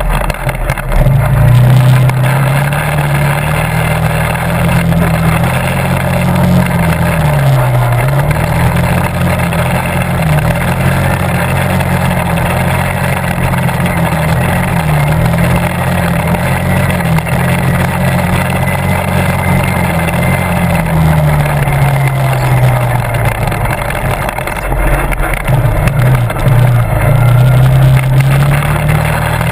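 Quad (ATV) engine running as it is ridden, its pitch rising and falling with the throttle. It dips briefly about a quarter of the way in, eases off for a few seconds after the middle, and picks up again near the end.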